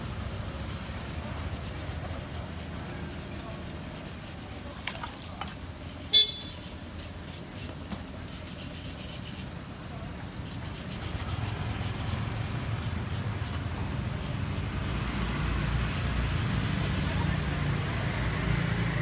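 Street ambience with a steady traffic rumble that grows louder in the second half. One brief, sharp, high sound stands out about six seconds in.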